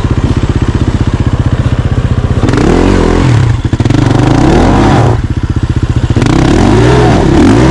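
Enduro dirt bike engine chugging evenly at low revs, then revved up and down several times from about two and a half seconds in.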